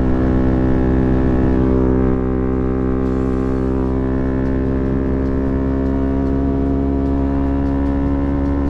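A vehicle engine running at a steady speed: a constant hum of many even tones that eases off slightly about two seconds in.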